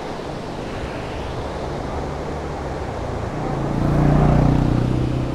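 Vehicle engine running steadily on the road, with road and wind noise. About four seconds in, a louder engine sound swells for a second or so and then eases back.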